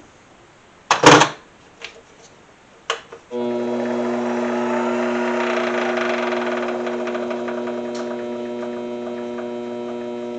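A few sharp clunks, the loudest about a second in. Then, about three seconds in, a mini lathe's motor starts up and runs with a steady hum, spinning a tack-welded workpiece.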